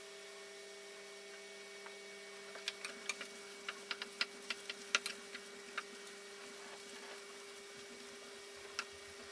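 Wooden spatula clicking and scraping against a non-stick frying pan as it turns Schupfnudeln: a quick run of about a dozen sharp clicks in the middle and one more near the end. Under it runs a steady hum.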